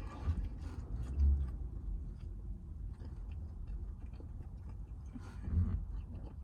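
Close-miked chewing and mouth sounds of someone eating, with small wet clicks and a couple of louder soft bites, over a steady low rumble.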